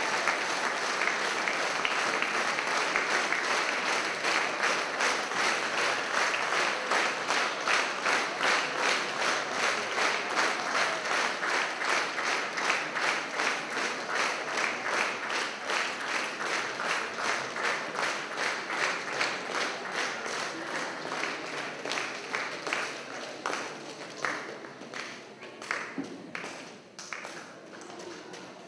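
Audience applauding; after a few seconds the applause settles into rhythmic clapping in unison at about two claps a second, then thins to scattered claps near the end.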